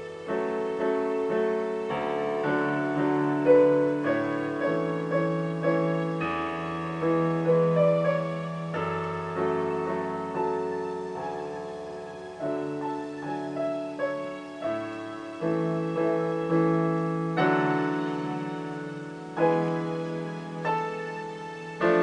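Solo piano playing a slow, lyrical melody over held chords, each note struck and left to ring out.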